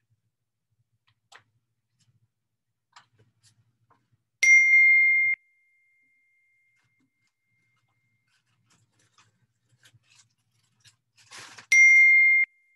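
Two high, steady beeps, each about a second long and about seven seconds apart, each starting and stopping abruptly. Faint clicks and rustling come between them.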